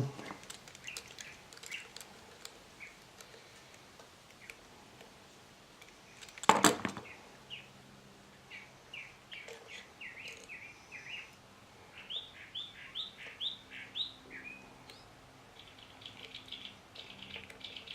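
Birds chirping in quick, short repeated notes through the second half, with one sharp knock about six and a half seconds in.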